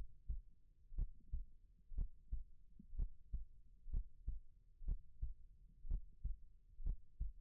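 Slow, steady heartbeat, each beat a soft double thump (lub-dub), about one beat a second.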